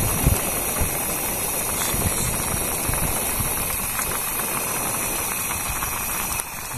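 Portable butane gas stove burning steadily under a pot of noodles, a continuous hissing roar from the burner, a little quieter near the end.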